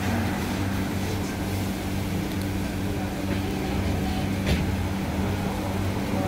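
Steady low mechanical hum, with a single short knock about four and a half seconds in.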